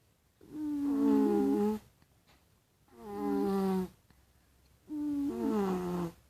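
A toddler snoring in sleep: three drawn-out snores with a humming, pitched tone, one with each breath, about two seconds apart.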